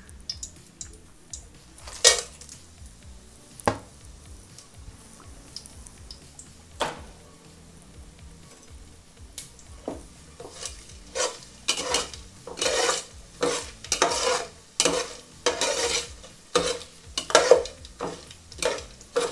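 Whole spices (bay leaves, cinnamon, cloves, cardamom and fennel) frying in hot oil in a metal pot. A few sharp clinks come in the first seconds, then a metal spatula scrapes and stirs against the pot in quick repeated strokes through the second half.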